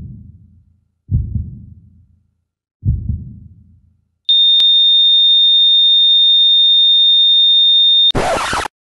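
Three deep booming hits about a second and a half apart, each dying away. Then a steady, high-pitched electronic beep holds for about four seconds and breaks off into a short burst of hiss like static.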